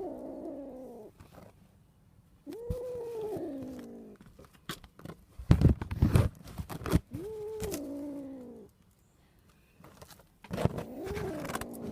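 A cat meowing in long drawn-out calls that fall in pitch: the end of one as it begins, then three more spaced a few seconds apart. Between the second and third meows comes a cluster of sharp knocks, the loudest sounds here.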